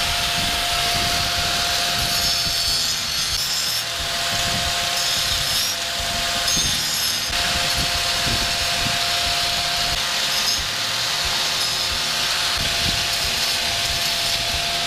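Angle grinder running steadily, its disc grinding against stone with a rasping hiss over a constant motor whine.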